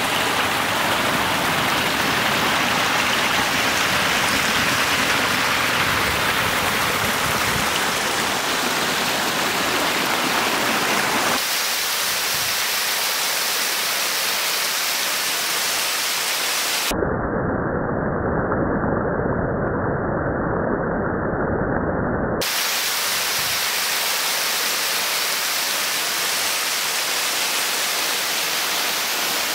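Small waterfall: water rushing over rock and splashing into a pool, a steady hiss of falling water. The sound changes abruptly at a few points, and for about five seconds past the middle it turns muffled and dull.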